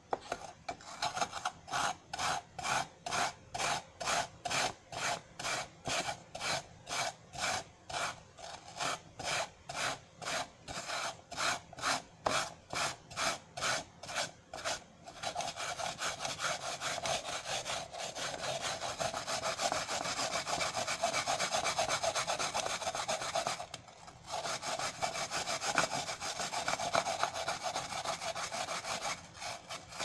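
Apple pieces being ground in a hand-twisted grater lid on a glass bowl, a rasping scrape. For the first half it comes in short back-and-forth strokes about twice a second. After that it becomes a continuous, faster rasping, with a brief break about three-quarters of the way through.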